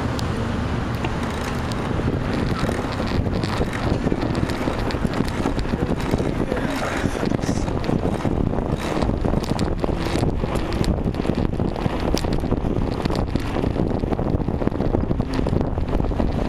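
Wind buffeting the microphone of a camera on a moving bicycle: a steady low noise, with frequent short knocks and rattles from about eight seconds in.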